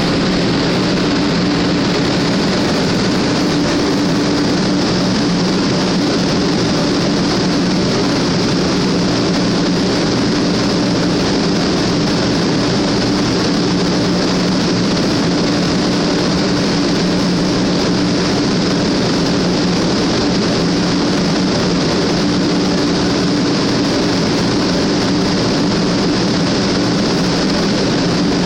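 Sanyo Shinkansen train running at speed: a loud, unchanging rush of running noise with a steady two-note hum underneath.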